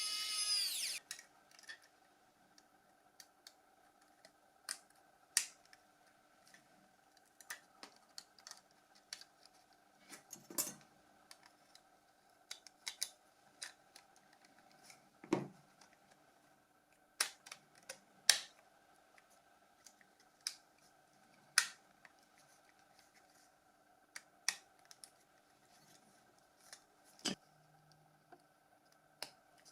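Small sharp clicks and taps at irregular intervals as the plastic and metal parts of a Nokia 6210s phone are handled and fitted together, over a faint steady hum. A brief ringing tone sounds at the very start.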